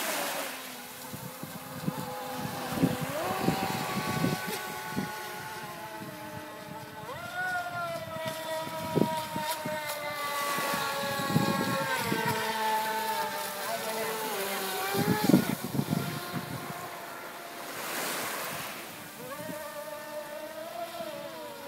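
Radio-controlled model speedboat engines running at speed, a high whine whose pitch rises and falls with throttle and turns, with sharp slaps and splashes as the hulls hit the water.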